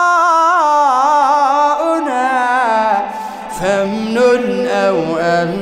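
A man chanting Quran recitation in the melodic tajweed style, holding drawn-out ornamented phrases whose melody wavers up and down. About halfway through, the voice drops to a lower pitch.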